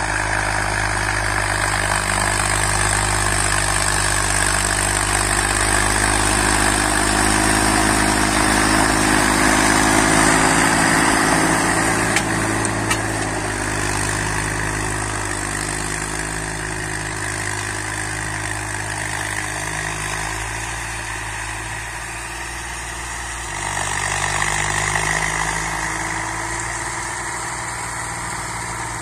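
1962 Massey Ferguson 35 tractor engine running steadily under load, pulling a tine cultivator through tilled soil. It grows louder as the tractor passes close, about ten seconds in, then fades as it moves away, with a brief rise again near the end.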